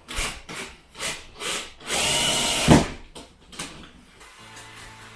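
Power drill-driver running once for just under a second, about two seconds in, with a thin whine, and ending in a knock. Several short scraping or handling noises come before it.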